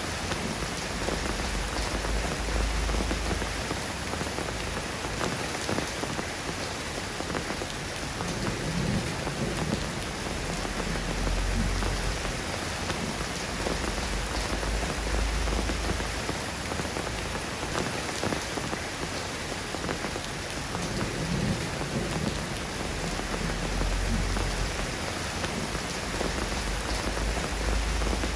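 Steady soft rain falling, an even hiss of drops. Deep low rumbles swell under it a few times.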